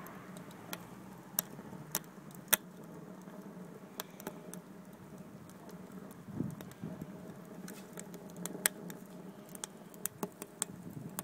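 Wood fire burning in a rocket stove, crackling with irregular sharp pops over a faint steady low hum.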